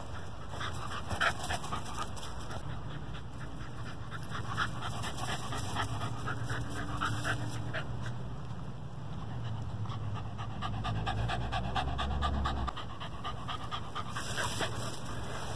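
Dog panting quickly in short, rhythmic breaths, out of breath after sprinting.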